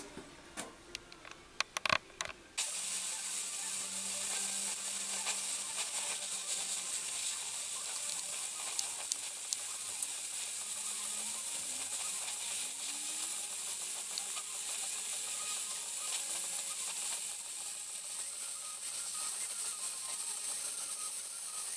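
A few light clicks, then, about two and a half seconds in, a gas-welding torch flame starts to hiss steadily while welding a steel fender seam.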